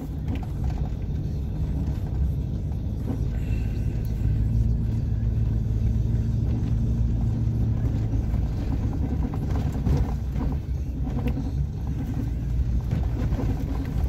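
Pickup truck's engine and exhaust through a Cherry Bomb 8-inch glasspack muffler, a steady low drone at an easy cruise, heard from inside the cab. It swells a little in the middle, then settles.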